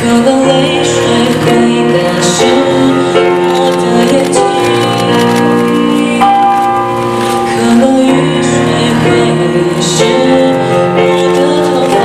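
A teenage boy singing his own song while accompanying himself on a grand piano, the piano holding sustained chords under his light voice.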